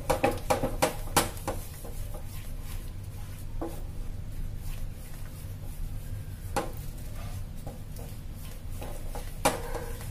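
Wooden spatula stirring thick custard in a metal pan, knocking and scraping against the pan. A quick run of clicks comes in the first second or so, then single knocks every few seconds, over a steady low hum.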